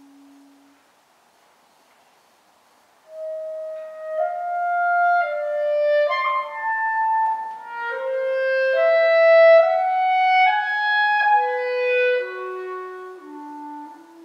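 B♭ clarinet playing a slow unaccompanied solo line. A soft low note dies away, and after a short pause a phrase enters about three seconds in, rising through held and moving notes to its loudest point past the middle, then falling back to soft low notes near the end.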